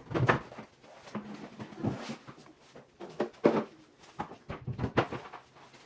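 Irregular knocks, clatter and rustling of pantry items (packages, boxes and containers) being taken off shelves and set down on a counter.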